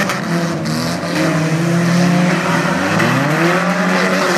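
Several old cars racing on a dirt figure-8 track, their engines revving up and down over one another, with overlapping rising and falling pitches.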